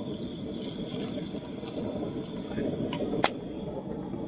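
Steady low rushing noise of a gas camp-stove burner running under a cast-iron camp oven, with one sharp click about three seconds in.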